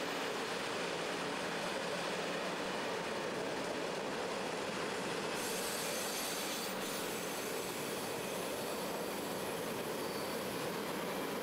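Container freight wagons rolling past at close range: a steady noise of steel wheels running over the rails, with more hiss from about five seconds in.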